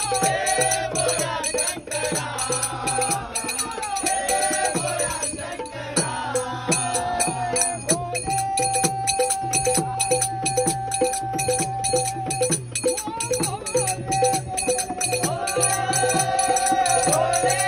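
Marathi devotional bhajan: voices singing over brass taal hand cymbals clashing in a steady beat and a hand drum. About eight seconds in, the singing settles on one long held note for several seconds before the melody resumes.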